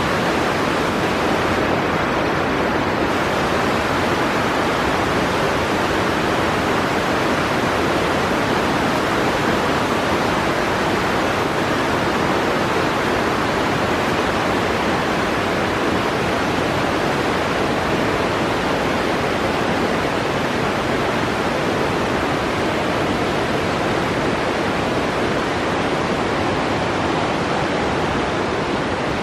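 Steady rushing of a mountain river or waterfall running high with typhoon rain.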